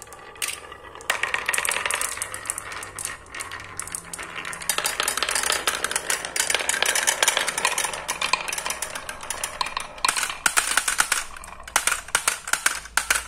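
Many marbles rolling and clattering down a wooden marble run, a fast, dense stream of clicks as they knock against each other and against the wooden channels and pegs. Near the end they drop into a plastic tray.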